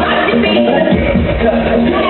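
Loud dance music with a heavy bass beat, played over a hall's sound system.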